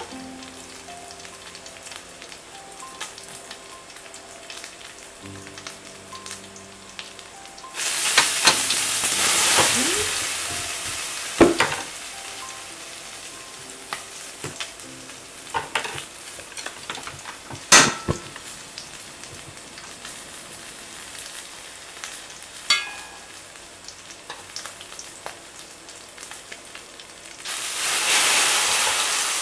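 Pork sizzling in a frying pan. About eight seconds in the sizzle jumps loud as bean sprouts go into the hot oil, then slowly dies down, broken by a few sharp clicks. Near the end it flares loud again as the noodles are dropped in to crisp.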